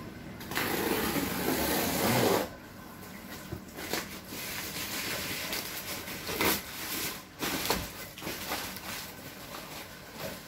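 Black plastic wrapping being torn and pulled off a cardboard box, rustling and crinkling, with a loud stretch of tearing from about half a second to two and a half seconds in, then quieter crackles and snaps.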